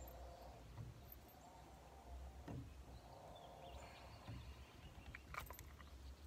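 Near silence: a low wind rumble and a faint on-and-off hum, with a few soft knocks as a freshly caught fish is handled on a boat deck.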